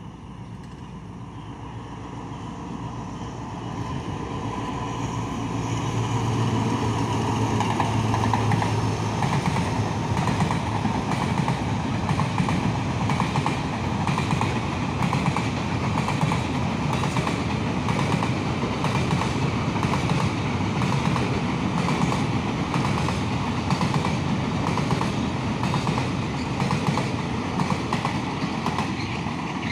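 Container freight train passing close by. The sound swells over the first few seconds as it draws near, then the wheels clack steadily over the rail joints as the loaded container wagons roll by.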